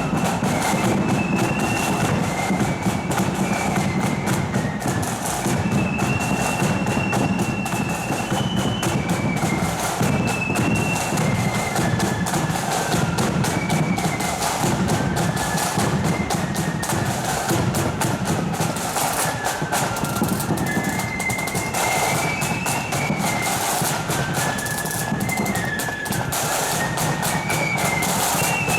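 Marching flute band playing: flutes carry a high, stepping melody over rapid snare-drum rolls and a steady bass drum beat.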